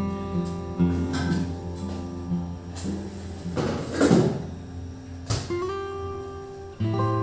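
Background music played on acoustic guitar, with picked and strummed notes. About four seconds in there is a short, loud rush of noise.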